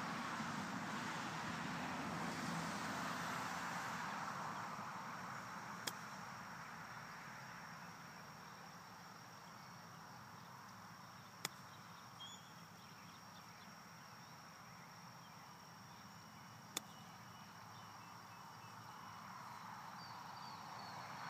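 Three sharp clicks of a golf driver striking balls off the grass, about five and a half seconds apart. Underneath is a steady wash of distant traffic noise that dies down and swells again near the end.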